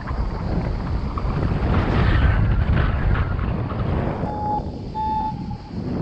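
Strong wind buffeting the camera microphone during a paraglider flight: a loud, gusty low rumble that swells for a couple of seconds in the middle. Two short steady high tones sound about a second apart near the end.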